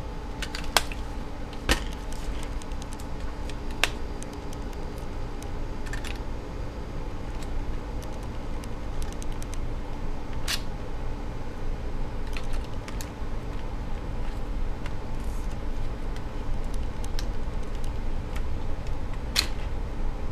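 Scattered sharp clicks and light knocks from handling a MacBook Air and plugging a USB cable into it, about half a dozen at irregular times, over a steady low hum.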